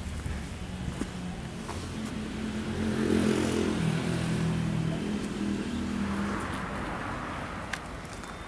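A car passes on the street: its engine gets louder to a peak about three seconds in, then drops in pitch and fades as it moves away.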